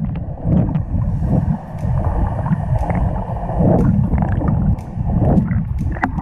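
Muffled churning and bubbling of water picked up by a camera held underwater while a swimmer moves, with scattered small clicks and knocks.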